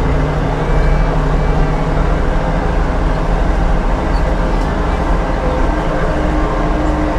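Farm tractor engine running steadily at working speed, a constant low drone with no break.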